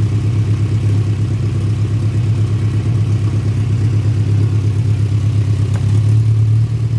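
Turbocharged VW Voyage's AP four-cylinder engine idling steadily, with the blow-off valve's vacuum line being pulled to see whether the idle changes. A short click about six seconds in, after which the idle gets a little louder.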